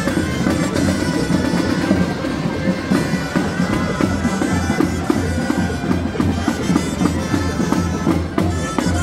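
Street band of reed pipes and drums playing a folk tune, the pipes holding a reedy melody over a bass drum beating about twice a second.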